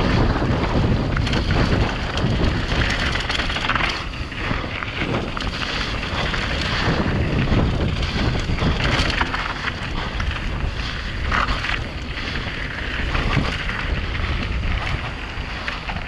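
Wind buffeting a GoPro's helmet-mounted microphone as a Giant Reign 27.5 mountain bike rolls fast down a loose hardpack dirt trail, with the hiss and crunch of MSC Gripper tyres on loose dirt and frequent knocks and rattles of the bike over bumps.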